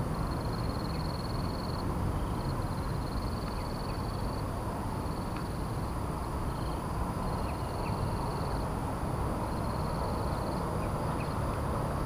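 Steady rumbling outdoor background noise, with a series of high, rapid buzzy trills from an animal calling again and again, each lasting a second or a few seconds.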